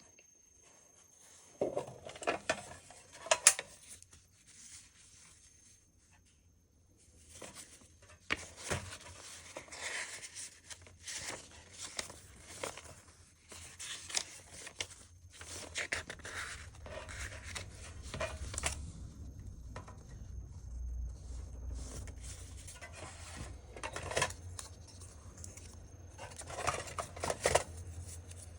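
A car tyre-repair kit being handled and unpacked: irregular clicks, rustles and light clinks of small parts, in bursts with a quiet pause a few seconds in.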